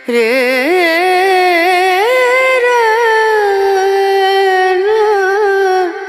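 Background music in an Indian classical style: a single melodic line that enters abruptly with wavering, ornamented notes, then settles into one long held note.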